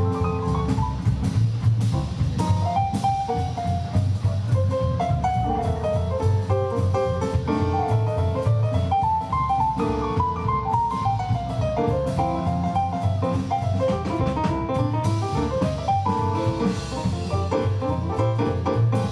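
Live band playing an instrumental passage: piano running melodic lines up and down over a walking double bass and a steady drum-kit beat.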